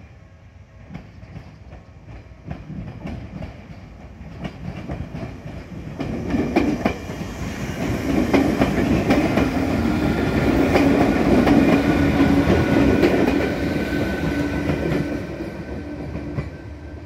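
Izukyu 8000 series electric train (ex-Tokyu 8000) passing close by. Its wheels click over the rail joints and its motors give a steady whine. The sound builds up, is loudest in the middle and fades as the train draws away.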